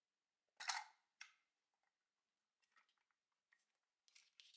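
The back latch of a Soviet Vilia 35 mm film camera clicking open with one sharp snap about half a second in and a smaller click just after, then a few faint clicks and a light rattle near the end as the hinged back is swung open and handled.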